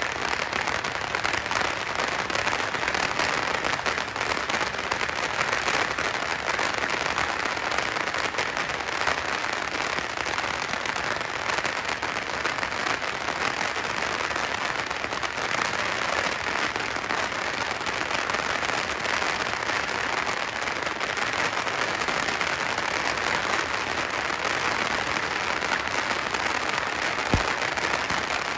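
A dense, unbroken crackle of firecrackers, countless small bangs running together at a steady level, with one deeper, louder thump near the end.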